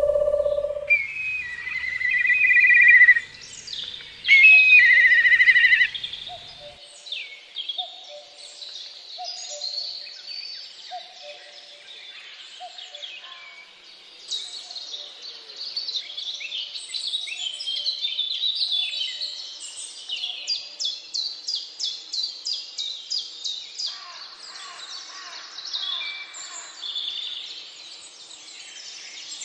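A chorus of several birds singing and calling, with chirps, whistles and trills overlapping. Loud whistled phrases come in the first few seconds, then a low note repeats about once a second for several seconds, and a fast, even trill comes about two-thirds of the way in.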